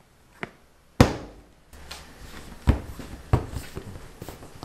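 Bread dough being worked on a stainless-steel worktable: a sharp thud about a second in as the dough is turned out of its plastic tray and dropped onto the steel, then three or four softer knocks and light rubbing as it is handled.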